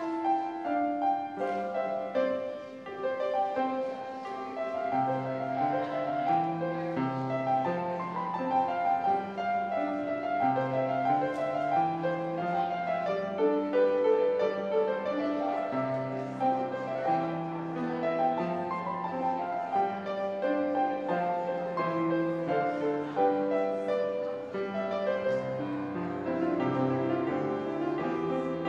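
Piano playing a slow, classical-style postlude with held chords and a moving melody as the service ends.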